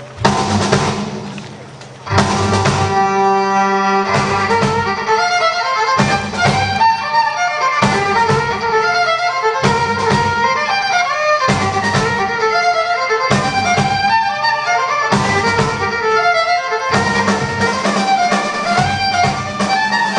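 A live band with an orchestra playing a tune, a fiddle carrying the melody over orchestral strings, bass and drums. It opens with a loud hit that dies away, and the full band comes in about two seconds in.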